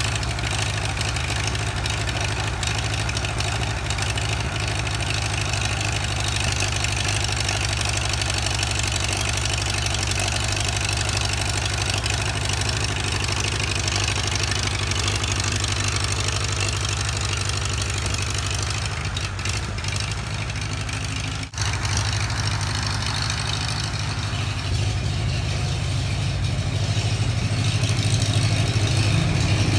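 An engine idling steadily, with a strong low, even drone; the sound drops out for an instant a little over two-thirds of the way through.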